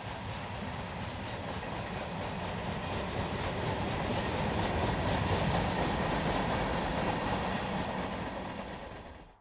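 Norfolk Southern freight train rolling past, a steady rumble of cars with faint repeated clicking of wheels over the rail joints. It grows loudest about halfway through and cuts off suddenly at the end.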